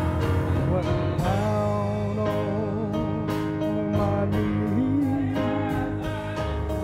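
Gospel song performed by a church band: a singer holds long, wavering notes over the band's accompaniment, with a steady beat.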